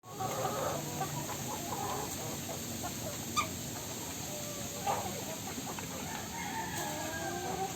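Chickens clucking and calling in their coop, with a rooster's long drawn-out crow near the end. Two brief sharp knocks come in the middle.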